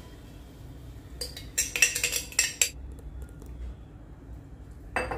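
Metal spoon clinking against a stainless-steel pressure cooker while cream is scraped in and stirred. A quick run of clinks comes about a second in, and one more comes near the end.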